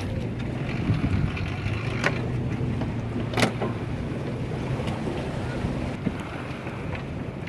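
An engine running steadily at low speed, with wind buffeting the microphone and two sharp knocks, about two and three and a half seconds in.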